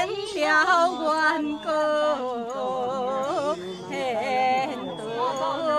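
A single voice chanting in a sing-song melody, holding notes with a quivering, wavering pitch and pausing briefly between phrases.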